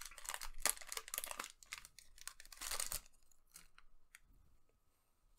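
A Digimon Card Game booster pack's foil wrapper being torn open and crinkled in the hands, crackling for about three seconds, then a few faint ticks as it goes quiet.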